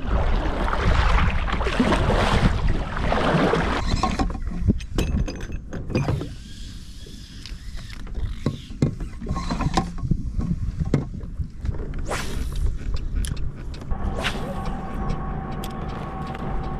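A few seconds of rushing noise, then a run of clicks and knocks of fishing tackle handled while casting and reeling from a plastic kayak, with a faint steady hum coming in near the end.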